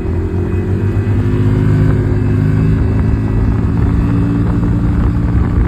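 Loud, steady machine rumble with a low pitched hum that drifts slightly. It drops off sharply right at the end.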